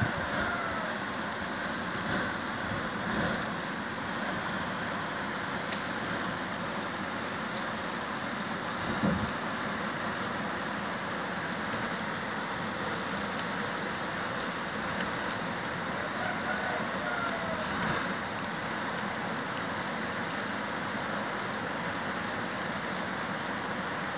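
Heavy tropical rain falling steadily, a constant even hiss of rain on the ground and vegetation. There is a brief thump about nine seconds in, and faint short chirps near the start and again around sixteen seconds in.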